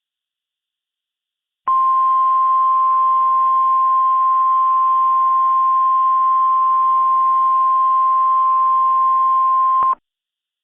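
NOAA Weather Radio 1050 Hz warning alarm tone: one steady high beep held for about eight seconds over faint static, starting a couple of seconds in and cutting off sharply. This tone signals that a warning message is about to be broadcast.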